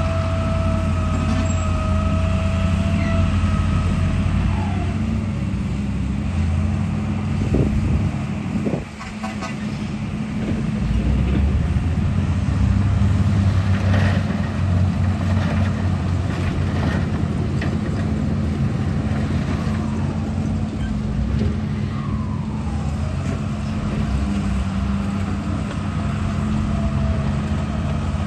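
Radio-controlled construction vehicle running: a steady engine-like drone with a thin motor whine that slides up and down in pitch a few times, dipping briefly about nine seconds in.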